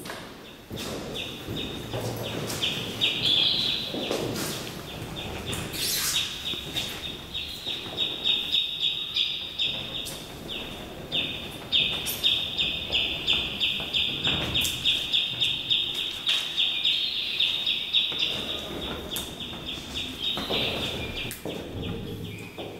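A grease pencil (dermatograph) squeaking as it is scribbled back and forth over a slick surface, about four or five strokes a second, in long runs with short pauses.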